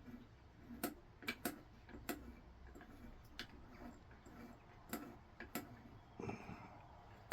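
Faint, irregular light clicks and taps, about ten spread unevenly, from a wooden axe-handle template and pencil being handled on a piece of ash while the outline is traced.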